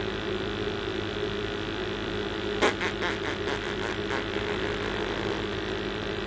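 Commercial gas boiler firing in a plant room, a steady hum of burner and fan with a few fixed tones. About two and a half seconds in, a sharp click is followed by a quick run of lighter clicks and rattles for a couple of seconds.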